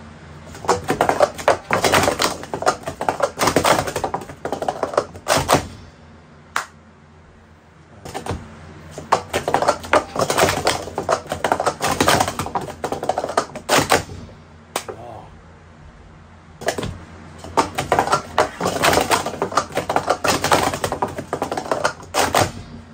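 Wooden sport-stacking cups clattering rapidly as they are stacked up and down on a stacking mat: three runs of quick clacks, each about five seconds long, with short pauses between. These are timed speed-stacking cycles.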